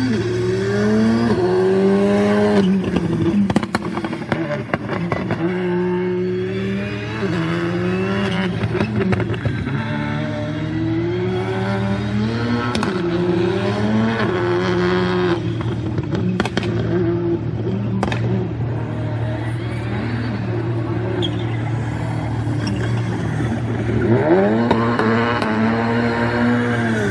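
Škoda Fabia R5 rally car's turbocharged four-cylinder engine, heard from on board. It revs up and drops back again and again through quick gear changes, with scattered sharp clicks and pops.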